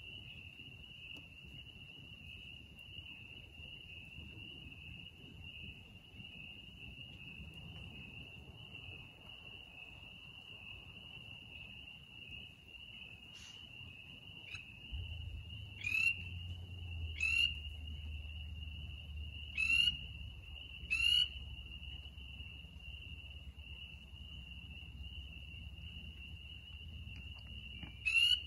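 A chorus of frogs or insects trilling steadily at one high pitch. From about halfway through, loud single sharp calls cut in, about one every one to two seconds, and a low hum joins them.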